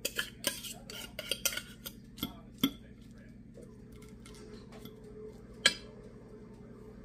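Metal fork scraping tuna out of a tin can and clinking against the can and a ceramic plate: a quick run of sharp clicks and taps for the first three seconds, then one loud clink near the end.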